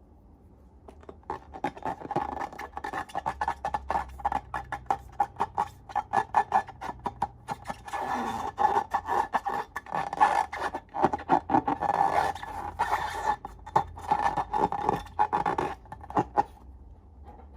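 Slime being squished and pulled by hand: a dense run of quick sticky clicks and pops, starting about a second in and stopping near the end.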